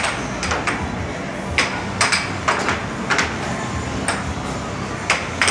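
Air hockey puck clacking off the plastic mallets and the rails of a Dynamo Fire Storm air hockey table in a fast rally: about a dozen sharp, irregular hits, over steady background noise.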